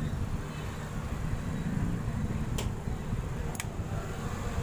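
Steady low background rumble with two sharp clicks about a second apart near the middle.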